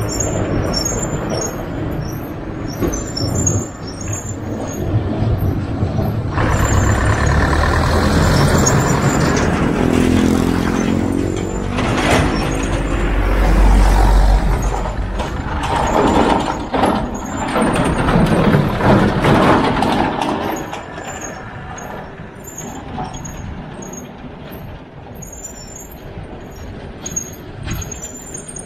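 A bus overtaking close alongside the bicycle, its engine growing loud from about six seconds in, shifting in pitch, and loudest at about the halfway point as it draws level, then fading as it pulls ahead. Wind and road noise run underneath.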